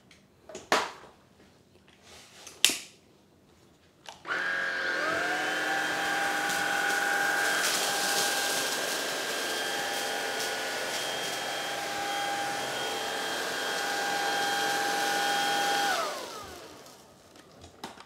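Greenote GSC50 cordless stick vacuum's 200 W motor switched on in normal mode about four seconds in. It whines up to a steady high-pitched hum with a hiss of suction as the motorised brush head is pushed over cornflakes on a hard floor. Near the end it is switched off and its whine falls away. Two sharp clicks come before it starts.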